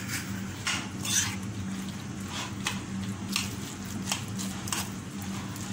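Boiled noodles and raw eggs being stirred together in a bowl: irregular wet squishing and spoon strokes, over a steady low hum.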